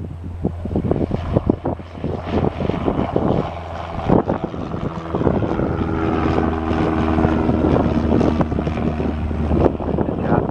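1979 Cessna 172N Skyhawk's four-cylinder Lycoming engine and propeller at full takeoff power during climb-out: a steady propeller drone that grows louder about halfway through as the plane passes, with a clear engine hum.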